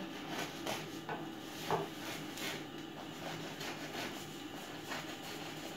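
Kitchen knife sawing through a half-baked frisa, a ring of durum-wheat bread with a firm crust, in a series of quiet rasping strokes.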